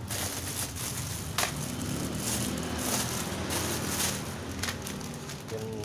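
Clear plastic bag crinkling and rustling as it is handled and opened, with a sharp click about a second and a half in, over a low steady hum.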